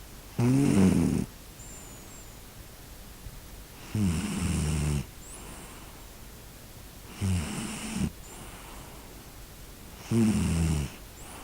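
A sleeping pet snoring: four loud, rasping snores about three seconds apart, each lasting about a second, each followed by a faint high squeak.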